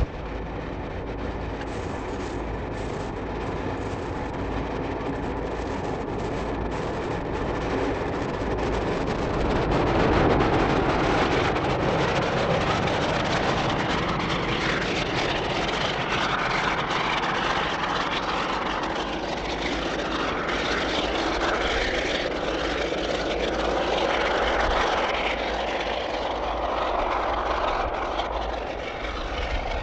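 Class 33 diesel locomotive and its coaches running past: a steady engine drone with the rumble of the train, growing louder about ten seconds in.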